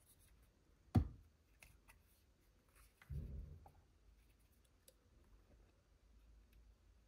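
Plastic handling sounds from an Insta360 Flow smartphone gimbal being turned and unfolded in the hands: a sharp knock about a second in, a duller thud a couple of seconds later, and small scattered plastic clicks and taps.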